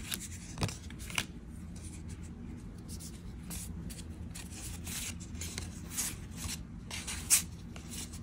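Magic: The Gathering cards handled in the hands: a run of soft sliding and rubbing as cards are fanned and moved through the stack, with small card snaps, the sharpest a little over seven seconds in.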